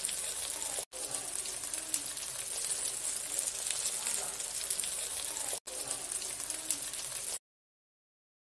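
Pearl spot fish (karimeen) sizzling in coconut oil on a banana leaf in a wok: a steady frying hiss with fine crackle. It drops out briefly twice and stops suddenly near the end.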